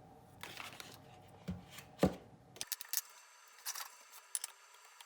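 Light clicks and scrapes of a knife and butter on a frying pan, with one sharper knock about two seconds in.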